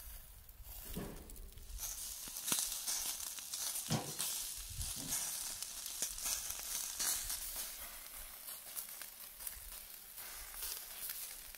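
Shashlik grilling over a fire, a steady hissing sizzle with scattered sharp crackles.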